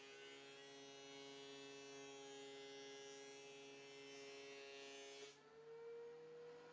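Near silence with a faint, steady hum that steps up slightly in pitch about five seconds in.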